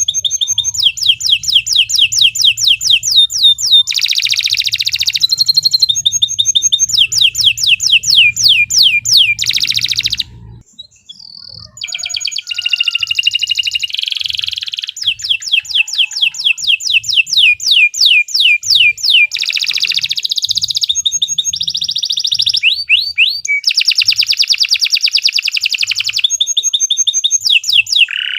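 Domestic canary singing a long, loud song of fast trills, each a rapid run of the same high note repeated several times a second, changing from one trill to the next. There is a brief pause about ten seconds in.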